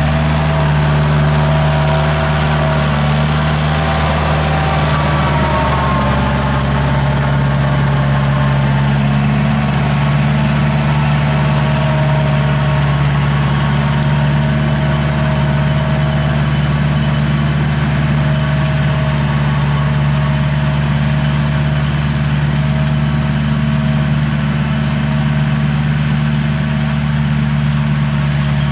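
Kubota L5018 tractor's diesel engine running steadily at constant speed while driving a rotary tiller through wet paddy soil.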